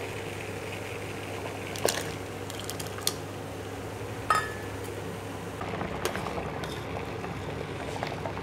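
Potato pieces boiling in water in a stainless-steel saucepan, a steady bubbling over a low hum. A metal ladle clinks against the pot three times, the loudest and most ringing about four seconds in.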